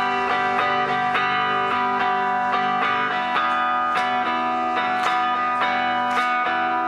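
Live band music led by a guitar strumming chords in a steady rhythm, with held chord tones ringing underneath.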